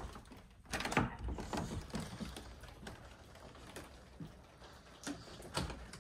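Metal lever handle and latch of a wooden door clicking as the door is worked, with a sharp clack about a second in, followed by scattered lighter knocks.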